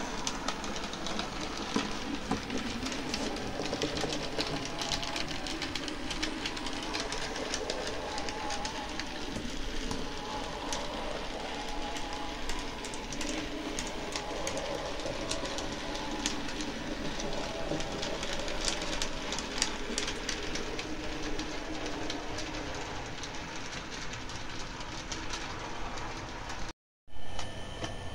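Model railway tank locomotive running with a coach: the steady whir of its electric motor and wheels on the track, with many small clicks. Near the end the sound cuts out briefly, followed by a short louder noise.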